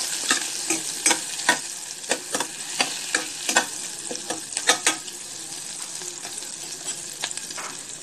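Green chillies sizzling in hot butter in a steel pot. For about the first five seconds a metal spoon clinks and scrapes against the pot as they are stirred, a few times a second; after that only the steady frying goes on.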